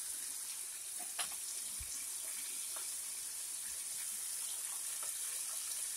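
Catfish pieces frying in hot oil in a pot, a steady sizzle, with a few faint clicks.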